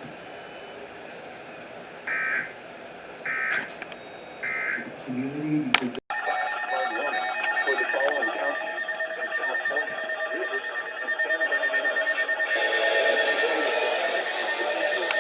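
Emergency Alert System SAME header: three short, identical data bursts about a second apart. After an abrupt cut, a steady electronic alert tone follows, with a voice-like sound under it.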